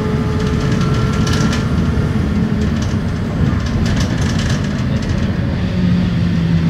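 Steady rumbling ride noise inside a moving vehicle, with brief rattling clicks now and then.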